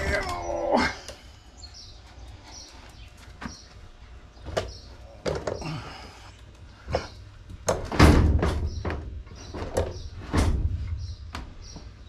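Push lawnmower being heaved up onto its end on a steel toolbox: scattered knocks and thumps from the mower's body, wheels and deck against the box. The heaviest thump comes about eight seconds in, with another a couple of seconds later.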